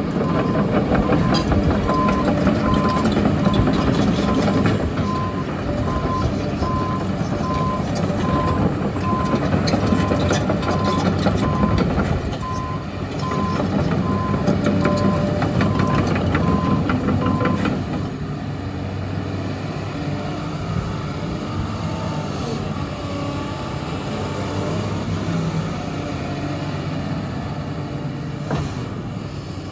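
SANY SY215C hydraulic excavator's diesel engine running under load, with its travel alarm beeping steadily and clanking and clicking from the machine. About eighteen seconds in, the beeping stops and the engine settles to a lower, steadier running.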